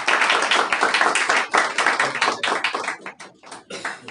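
Applause from a small group: many hands clapping together, thinning to a few scattered claps about three seconds in and dying away.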